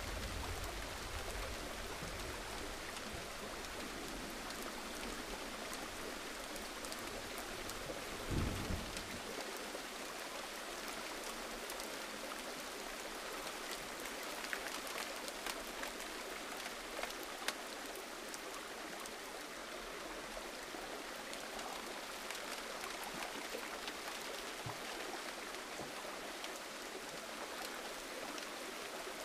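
Steady gentle rain falling, with scattered drop ticks. A brief low thump comes about a third of the way in, and a sharp click later on.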